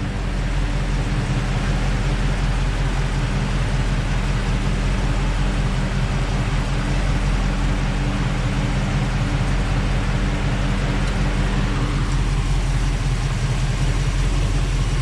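Car engine idling steadily while its cooling system is being burped of air after a thermostat change, with a steady rush of air from a fan blowing on the radiator.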